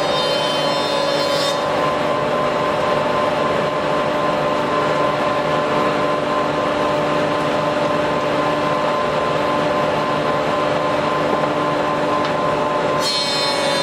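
Heavy-duty double-sided thicknesser with spiral cutterheads running, a steady loud machine drone with a fixed humming whine. A higher ringing whine drops out about a second and a half in and comes back near the end.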